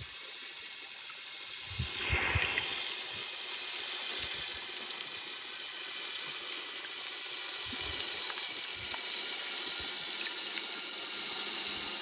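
Water sloshing and hissing around a camera held underwater, with a short swell of rushing water about two seconds in and a few soft low thumps.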